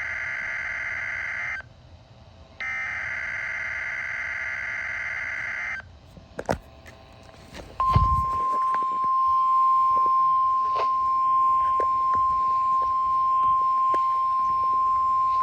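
Emergency Alert System SAME header: two buzzy digital data bursts of about three seconds each, a second apart. After a click and a thump comes the steady single-pitch 1050 Hz NOAA Weather Radio warning alarm tone, held for about nine seconds. These are the header and attention tone of a flood watch alert breaking into the coastal flood warning broadcast.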